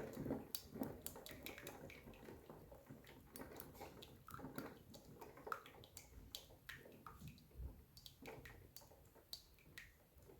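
Hamilton Beach Scoop single-serve coffee maker brewing: faint, irregular dripping and small ticks as hot water and coffee run through into the cup.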